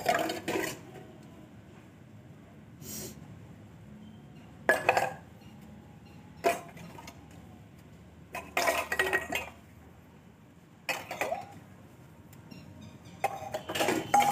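Stainless-steel utensils clinking and clattering against each other as they are washed by hand, in about seven short bursts a second or two apart.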